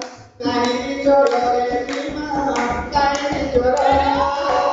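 A man singing a folk melody, accompanied by strokes on a large barrel drum. The music breaks off for a moment at the start, then carries on.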